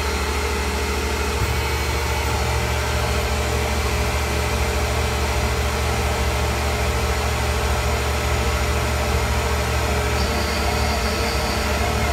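Tormach 1100 CNC mill running steadily, its spindle turning a single-point thread mill that cuts a 1/4-20 thread in an aluminium part under flood coolant. The low machine hum is steady, and a faint high whine joins near the end.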